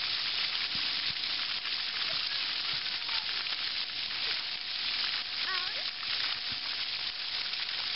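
Splash-pad ground fountain jets spraying water onto the concrete: a steady hiss of spray and spatter.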